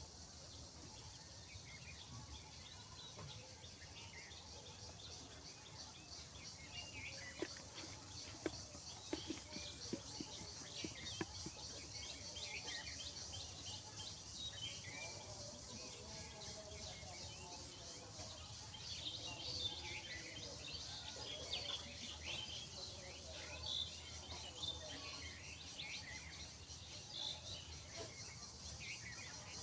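Outdoor ambience of a steady, high-pitched, finely pulsing insect buzz with scattered bird chirps, the chirps busier in the second half. A few light ticks come between about seven and eleven seconds in.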